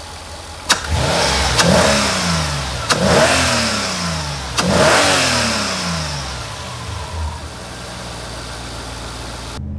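Mercedes SL55 AMG's supercharged 5.4-litre M113K V8 blipped three times, the pitch rising sharply and falling back after each rev, then settling to a steady idle. The supercharger pulley turns on a freshly replaced bearing, with no rattle from it.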